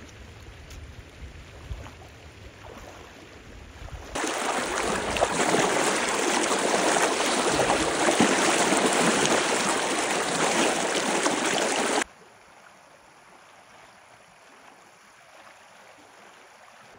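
Feet in sandals wading through a shallow, flowing river, splashing loudly for about eight seconds. The splashing starts about four seconds in and cuts off suddenly. It is framed by the steady rush of the river, with a low rumble at first and fainter after the splashing.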